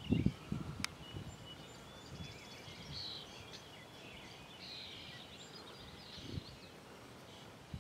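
Several birds chirping and trilling in the background, with a few low thuds in the first half second and a single sharp click just under a second in.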